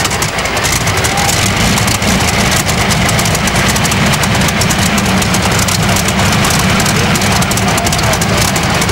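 Modified pulling tractor's big exposed engines idling steadily, loud and even, with no revving.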